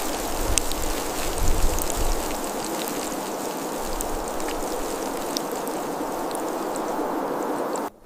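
Steady hiss of a snowstorm, with scattered light ticks of snow striking and a few low thumps in the first two seconds; it cuts off abruptly just before the end.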